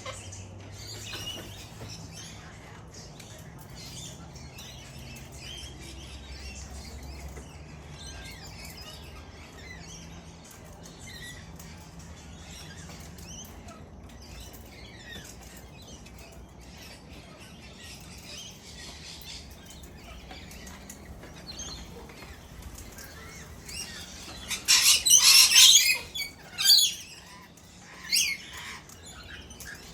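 Wild parrots chirping and chattering, then loud harsh squawks, a long run about three-quarters of the way through and two shorter ones near the end.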